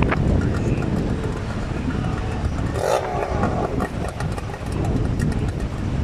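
Motor engine running with a low, steady rumble, wind buffeting the microphone, and a brief louder surge about three seconds in.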